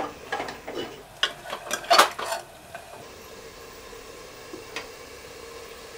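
Steel ladle scraping and clinking against the metal pressure cooker as mutton in tomato and spice masala is stirred while it fries (bhuna), with several knocks in the first two and a half seconds, the loudest about two seconds in. After that only a faint steady sizzle of the masala frying.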